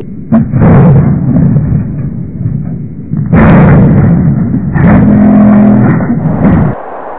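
Violent crash at a railroad crossing: a sharp bang, then loud, distorted crashing and scraping noise in two long surges, cutting off abruptly near the end.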